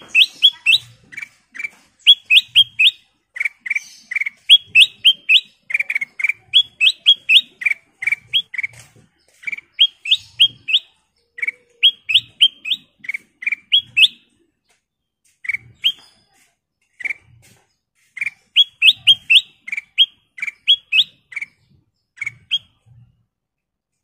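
Kutilang emas (ruby-throated bulbul) singing a long run of loud, clear chirps: single lower notes alternate with quick runs of three or four higher, upward-sliding notes, with a few short pauses.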